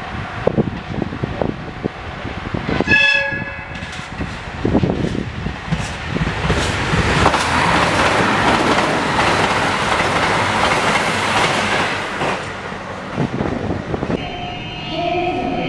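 JR Hokkaido KiHa 261 series 1000-subseries diesel express train giving one short blast of its emergency horn about three seconds in as it approaches. It then passes at high speed with a loud rush of wheel, rail and engine noise lasting about six seconds, fading away near the end.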